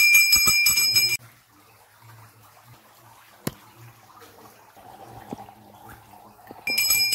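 Brass temple hand bell rung rapidly during puja: a steady high ringing tone with quick strikes. It stops suddenly about a second in. What follows is a quiet stretch of faint water sounds and a single sharp click, and the bell starts ringing again near the end.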